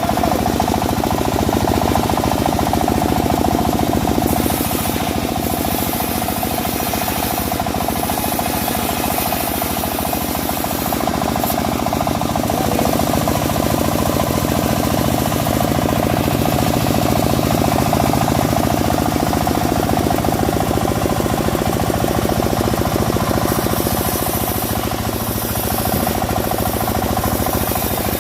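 Engine-driven homemade bandsaw mill running steadily with a fast, even engine pulse, its blade sawing through a teak log.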